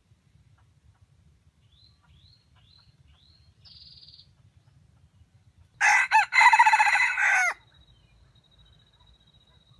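Red junglefowl rooster crowing once, about six seconds in, a loud call lasting under two seconds. A few faint short chirps from small birds come before it.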